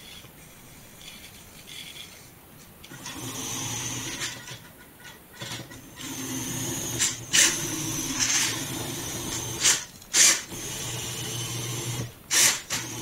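A small homemade four-wheel robot's wheel motors and servos whining steadily as it drives, starting about three seconds in, broken by several loud sharp clicks.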